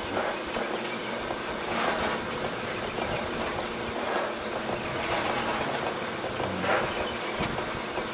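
Seamless gutter machine running, its rollers forming a continuous length of sheet-metal gutter. The noise is steady, with a thin high whine.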